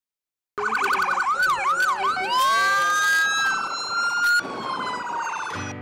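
Several emergency vehicle sirens start about half a second in and overlap: a fast warbling yelp and slower wails rising and falling, then a rapid pulsing tone that slides down in pitch. Acoustic guitar music comes in right at the end.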